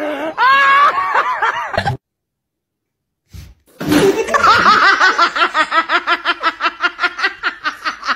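A person's excited voice exclaiming, cut off about two seconds in, then after a second of silence a person laughing hard in a fast, even run of 'ha-ha-ha' laughs, about five a second.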